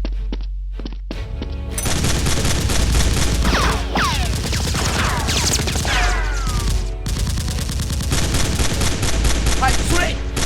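Rapid bursts of automatic gunfire, a dense string of shots starting about two seconds in, over background music with a low droning bass.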